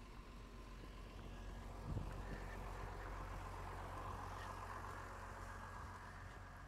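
A vehicle's engine running, growing louder from about two seconds in and easing off near the end, with one short knock about two seconds in.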